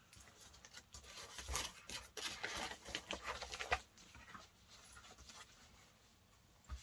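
Faint rustling and handling of paper and cardboard packaging, in a run of soft scratchy rustles that die down after about four seconds.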